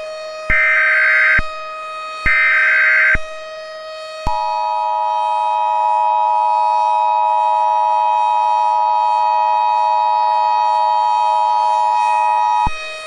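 Emergency Alert System signal: two short bursts of SAME header data noise, under a second each and about a second apart, then the two-tone EAS attention signal, held steady for about eight seconds before cutting off. It heralds a tornado warning.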